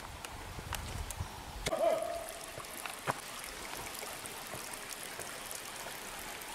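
Small stream of water trickling and splashing over rocks in a shallow channel, a steady hiss of running water. There are a few light clicks near the start and a brief pitched sound about two seconds in.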